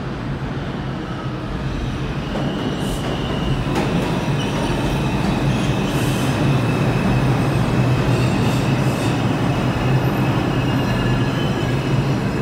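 Bombardier R142 subway train pulling into the station on the express track: a steady rumble of wheels on rail that grows louder after the first couple of seconds, with a high steady squeal above it.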